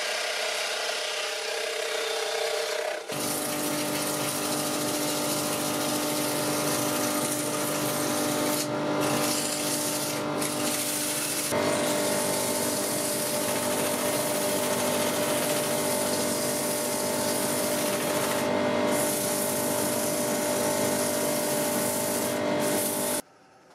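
Wood lathe spinning a thin platter: a gouge cutting the wood for about the first three seconds, then sandpaper pressed by hand against the spinning face, a steady rubbing hiss over the lathe's hum. It cuts off suddenly just before the end.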